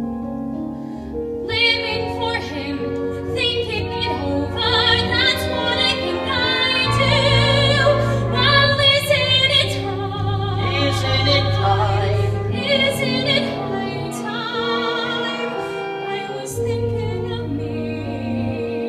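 A woman singing a musical-theatre ballad in a trained, operatic voice with vibrato, over piano accompaniment.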